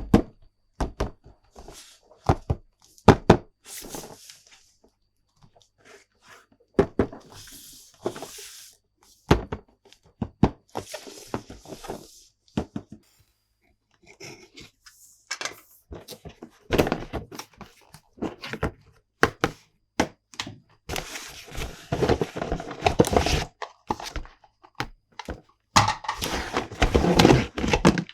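Hands handling plastic toy parts and packaging: many sharp clicks, knocks and thunks, with rustling that is loudest in two stretches near the end.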